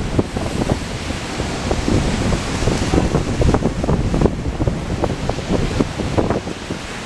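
Gusty wind buffeting the microphone in irregular low thumps, over the rolling rumble of a passenger train moving away.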